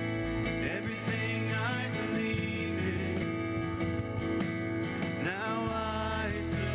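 Acoustic guitar and electric bass guitar playing a country-style worship song, with a voice singing over them.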